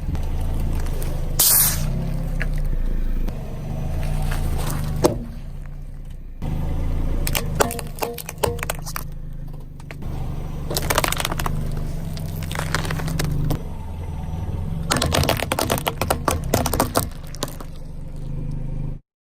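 Car engine running with a steady low rumble, while its tyres roll over and crush objects in several clusters of crackling and scraping; the sound cuts off abruptly near the end.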